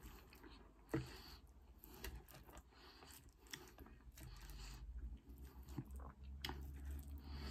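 Faint, close-up chewing of loaded fries, with a few sharp clicks from chopsticks against the plate; the loudest click comes about a second in.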